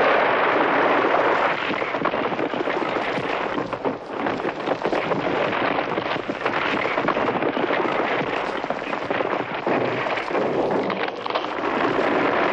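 Vintage avalanche sound effect: a continuous loud rushing noise of sliding snow and debris, thick with crackling, dipping briefly about four seconds in and again near the end before surging back.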